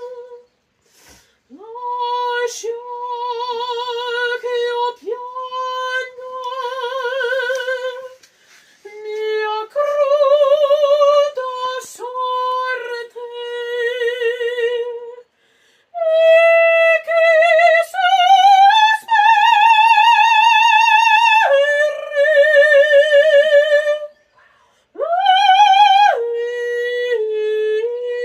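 A woman singing in operatic style with no accompaniment. She holds long notes with a wide vibrato in phrases broken by short breaths, and climbs to a long high note about two thirds of the way through.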